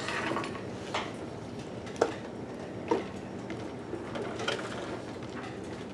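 Chalk tapping on a blackboard: a few short clicks about a second apart, over steady room noise.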